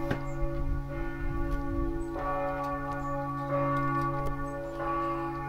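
Church bell ringing, struck roughly every one to two seconds, each stroke renewing a steady, lingering hum.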